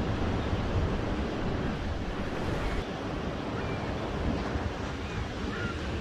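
Ocean surf breaking and washing up a sandy beach, a steady rush with a deep low rumble. A few faint, short bird calls sound over it in the second half.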